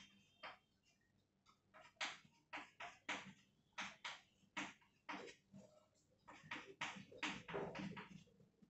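Chalk on a chalkboard during writing: faint short taps and scrapes, one stroke after another, about one or two a second, coming closer together near the end.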